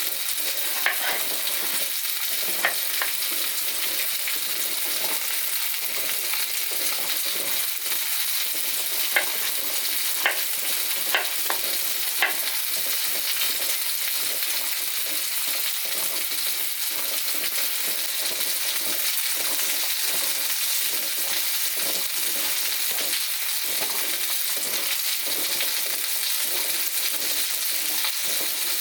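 Food sizzling steadily in a hot pan, with a handful of sharp taps of a cooking utensil, mostly in the first half.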